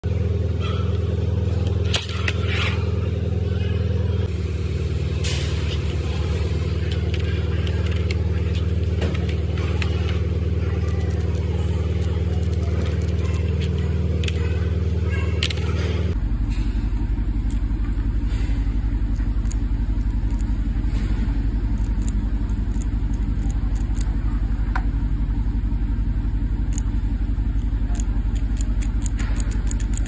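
Steady low mechanical hum, changing abruptly about halfway through, with scattered small clicks of the plastic seat-belt buckle parts being handled, more of them near the end.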